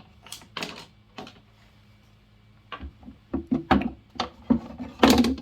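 Clicks and knocks of case collator parts being handled and fitted together by hand: a few light clicks, a pause, then a run of knocks that grows louder near the end.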